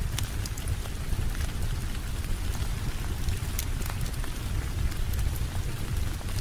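Steady rain with a low rumble, dotted with scattered sharp crackles and ticks as of a wood fire.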